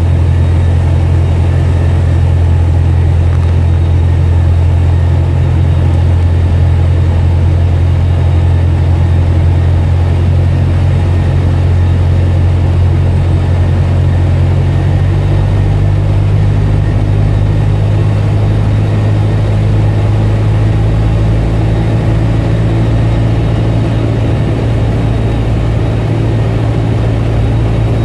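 Cessna 172's piston engine and propeller droning steadily as heard inside the cabin on final approach to landing. The tone of the drone changes about halfway through and it grows slightly quieter near the end.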